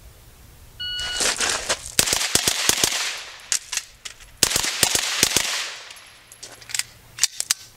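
Shot timer beep, then a Sig Sauer MPX carbine firing fast pairs of shots in an El Presidente drill: a first string, a short break in the firing for the magazine change about four seconds in, then a second string with the last few shots near the end.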